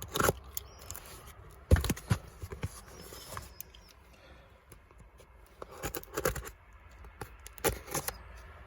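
A parcel's packaging being handled and opened by hand: scattered rustles, scrapes and a few knocks, with quieter stretches between.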